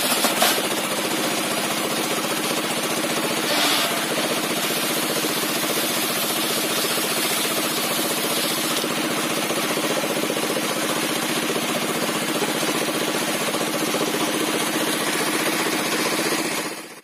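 Engine-driven sawmill circular saw with a 60 cm blade with alternately set teeth, running steadily while timber is fed through it, mixed with the drive engine's steady running.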